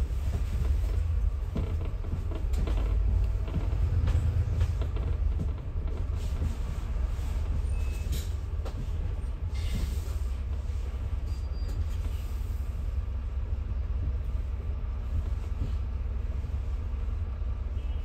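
Low, steady rumble of a city bus's engine and tyres heard from inside the passenger cabin, with scattered rattles and knocks from the bodywork.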